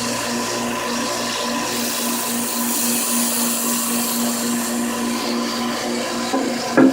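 Belt grinder running with a used 400-grit belt: a steady motor hum under a hiss that turns brighter from about two to five seconds in as a kitchen knife's edge is ground on the belt. A short knock near the end.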